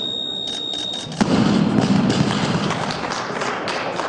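A steady high electronic beep sounds until about a second in. Then the 85 kg barbell loaded with Eleiko bumper plates is dropped from overhead and crashes onto the lifting platform. The crash is followed by scattered hand clapping from the audience.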